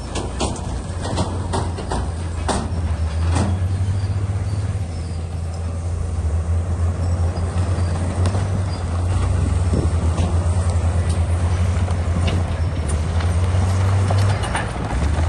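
Bulldozer's diesel engine running steadily under load, with clanking and knocks from the tracks and the rock being pushed, thickest in the first few seconds and again near the end.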